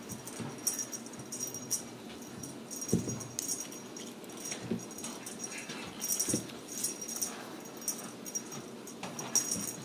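Small bell jingling in short bursts as kittens bat at a feather wand toy, with a few soft thumps of kittens pouncing on the rug.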